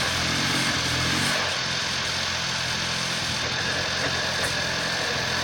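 A 2012 Volkswagen GTI Mk6's turbocharged 2.0 TSI four-cylinder engine, on an APR Stage 1 tune, idling in what the owner calls a rough idle. The low engine note weakens a little over a second in.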